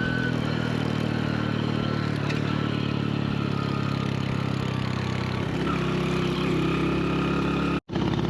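Honda Win motorcycle's small single-cylinder four-stroke engine running steadily under way. About five and a half seconds in, the engine note shifts and gets a little louder. The sound drops out for an instant near the end.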